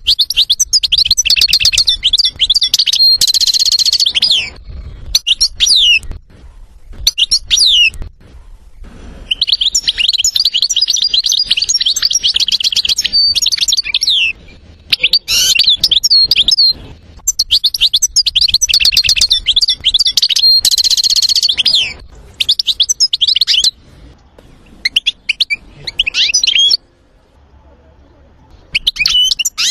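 European goldfinch singing: long phrases of rapid twittering and trills broken by short pauses, with an occasional drawn-out nasal note held on one pitch.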